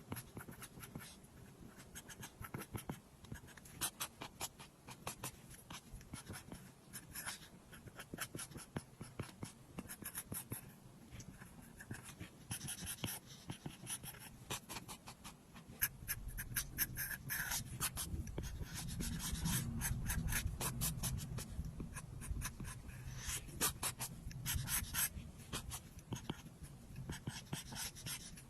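Apple Pencil tip tapping and sliding on an iPad's glass screen in quick, irregular ticks and short scratchy strokes while drawing and colouring. A low rumble comes in about halfway.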